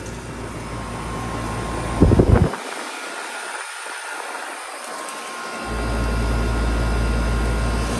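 2002 Westinghouse 1.5-ton heat pump's outdoor unit running in heat mode, a steady whooshing fan and compressor hum. A brief loud rumble comes about two seconds in, and a deep rumble returns for the second half.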